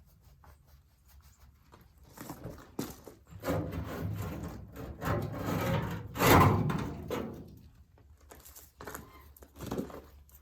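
Hood of a 1931 Rumely 6A tractor being lifted off: scraping, rubbing and clunking of metal, the loudest a single thump about six seconds in, then a few small knocks near the end.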